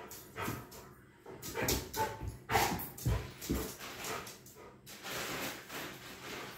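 A dog vocalising in a string of short, uneven sounds while begging for a piece of cake held above its head.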